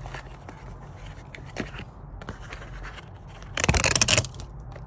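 Cardboard and paper packaging of a cat DNA test kit being handled: scattered small ticks and rustles, then a loud scraping rustle about three and a half seconds in that lasts about half a second.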